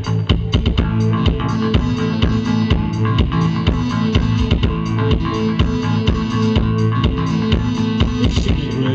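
Live band music: drum kit keeping a steady beat under sustained bass and guitar.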